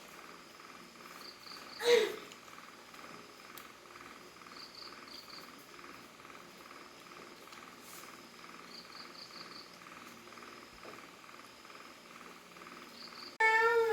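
Crickets chirping in small repeated groups of pulses over a steady insect drone. About two seconds in there is a short, loud call that falls in pitch.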